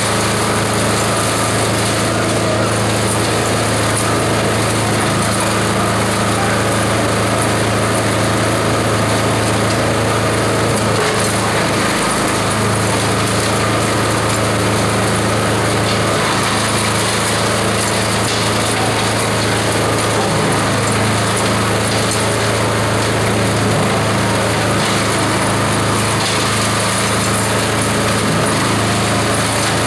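Multi-purpose chopper/shredder running steadily under load as coconut husks are fed through it, a continuous machine drone with a dense noisy spread of shredding noise over it.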